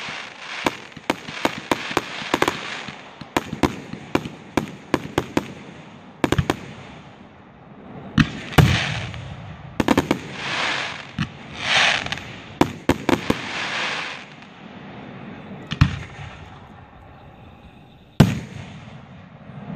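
Aerial fireworks going off: a rapid string of launch thumps and bursting shells in quick succession, then several longer hissing, crackling bursts, and a couple of single loud bangs near the end.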